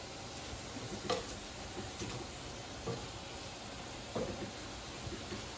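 Shrimp and vegetables sizzling in hot oil in a wok, with a few light clicks of a spatula against the wok about once a second as the food is turned.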